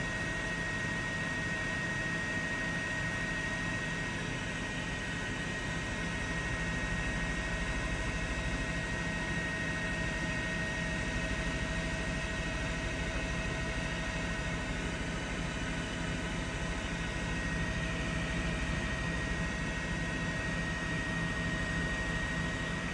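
Steady helicopter engine and rotor noise with a constant high whine.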